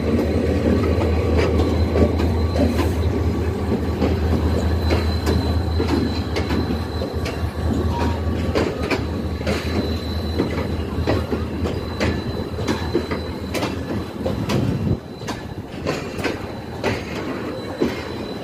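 A diesel locomotive and its passenger coaches rolling past at arrival. The engine's low drone fades out about fifteen seconds in, while the wheels click over rail joints and a thin steady squeal runs underneath.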